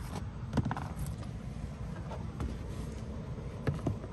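A few light, scattered knocks and handling sounds over a low steady rumble, as of someone moving about and handling things.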